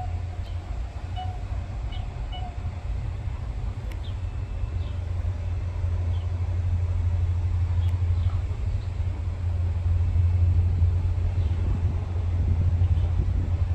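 Low, steady engine rumble of an approaching CFR 'GM' diesel-electric locomotive, growing gradually louder as it nears.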